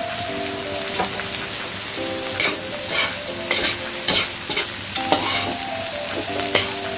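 Julienned carrots, onion and ginger sizzling in a hot metal wok while a metal spatula stirs and scrapes them. From about two seconds in come repeated sharp scrapes and clinks of the spatula against the wok.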